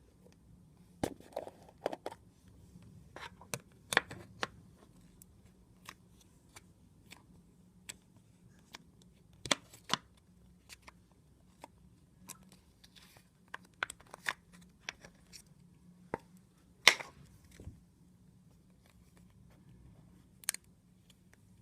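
Hands kneading, poking and stretching butter slime, giving irregular sharp clicks and pops, with the loudest about two-thirds of the way through.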